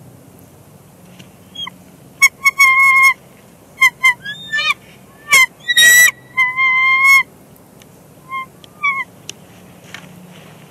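A pair of bald eagles calling back and forth at the nest as they exchange incubation duty: a run of high, thin, whistled chirps and piping notes, some sliding in pitch, with one harsher call in the middle. The calls begin about a second and a half in and stop around nine seconds in.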